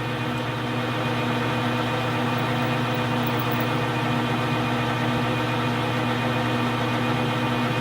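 Metal lathe running steadily under power, its motor and gearing giving a constant hum with several steady tones, as it turns a spacer pin for center drilling.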